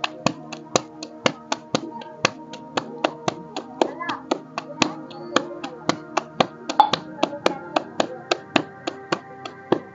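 Roti dough being patted flat between the palms, a quick rhythmic slapping about four times a second, over background music with sustained tones.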